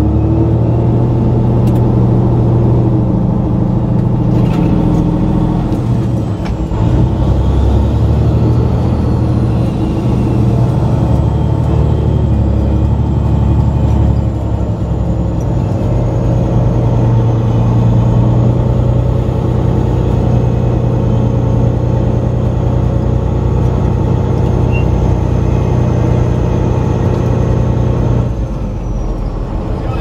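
Heavy truck's diesel engine running steadily as the semi pulls slowly through a yard, heard from inside the cab. The engine note drops and quietens about two seconds before the end.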